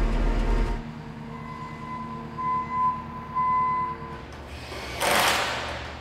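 A heavy loader's engine running with a steady mechanical whine, then about five seconds in a short burst from a cordless impact wrench on the wheel's lug nuts.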